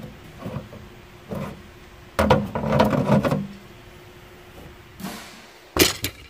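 Clunks and rattles of metal tongue-and-groove pliers being handled on a car's rear panel, in an attempt to grip and turn a rusted license plate bolt. There is a longer stretch of scraping and rattling in the middle, and two sharp clacks near the end as the pliers are set down.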